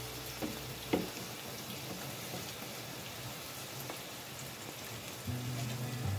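Spinach for palak paneer sizzling and crackling in the pan as its released water cooks off, with two light knocks about half a second and a second in. Background music comes in near the end.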